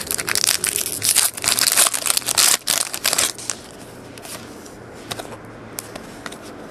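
Plastic foil wrapper of a trading card pack crinkling and tearing as it is pulled open, for about three and a half seconds. After that it goes much quieter, with a few soft clicks as the cards are handled.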